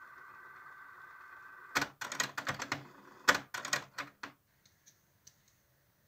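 Panasonic RX-DT680 cassette deck in pause-search: a faint steady whine from the winding tape, then about two and a half seconds of rapid mechanical clicks and clunks from the deck mechanism as the search ends and it switches over to play, then near silence.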